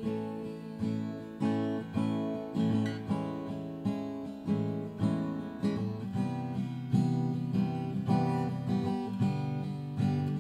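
Acoustic guitar strummed in a steady rhythm, chords ringing between strokes, with no voice.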